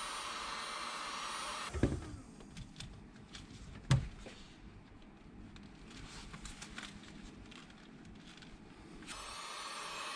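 Black+Decker heat gun blowing steadily, then switched off about two seconds in. Two knocks follow, the second the loudest, then light handling taps and rustles as the softened sole is pressed onto the boot by hand. The heat gun starts blowing again near the end.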